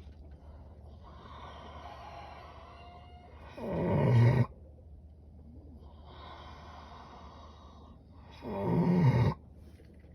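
Heavily pregnant sows snoring in their sleep: two loud snores about five seconds apart, each about a second long and swelling as it goes, with softer breathing between them.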